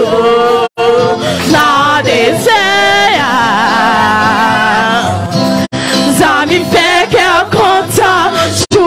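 Gospel worship song: a singer with musical accompaniment, holding a long wavering note in the middle. The sound cuts out for an instant three times.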